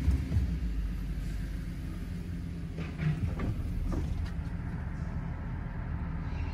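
Pickup truck's engine running at low speed as it rolls slowly forward, heard from inside the cab as a steady low rumble, with a few faint knocks about three to four seconds in.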